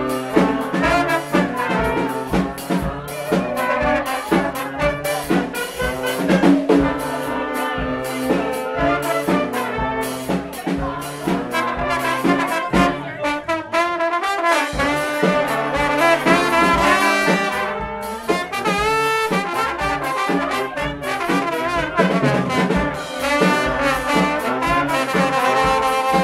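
Live brass band playing an upbeat tune over a steady drum beat, with a plastic trombone and trumpets carrying the melody. The lowest notes drop out for a moment about halfway through.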